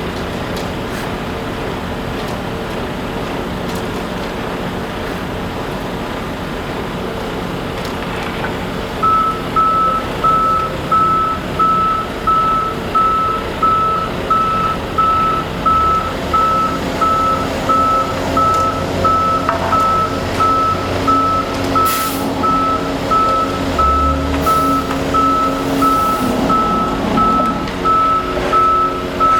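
Concrete mixer truck's engine running steadily, then its reversing alarm starts about a third of the way in, beeping just over once a second as the truck backs up.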